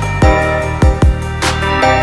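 Background music with a steady electronic beat: a deep kick drum about every 0.6 s under sustained synth chords.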